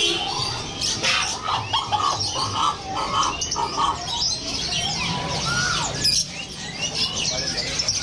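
Many caged songbirds of mixed kinds chirping and singing at once. One bird gives a run of about five short repeated notes a second or two in, and rising and falling whistles sound near the end.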